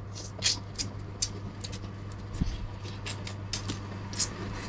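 Close-up eating sounds as a piece of tamarind-fried crab is sucked and chewed from the shell: about fifteen short, irregular wet clicks and smacks, under three a second. A steady low hum runs underneath.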